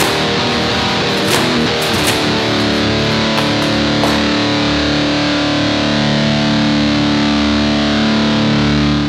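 Rock music on a distorted electric guitar: a few struck chords early on, then one chord held and ringing steadily.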